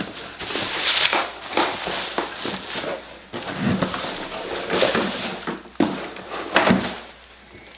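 A shipping package being torn and pulled open by hand, without a box cutter: a run of irregular ripping, crunching and crinkling noises that dies down near the end.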